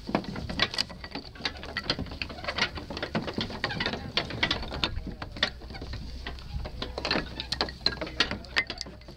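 Irregular knocks, scuffs and scrapes of climbers' shoes and hands against a plywood obstacle wall, over a steady low rumble.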